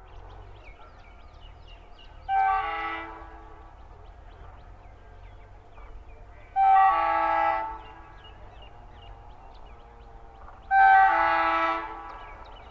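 WDG3A diesel locomotive's horn sounding three times as the train approaches. Each blast is a chord of steady tones lasting about a second, and the blasts come about four seconds apart.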